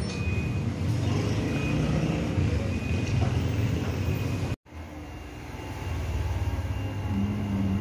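Road traffic noise with a fluctuating low rumble of passing motor vehicles. About halfway through it cuts off abruptly and gives way to a steadier, quieter low indoor hum.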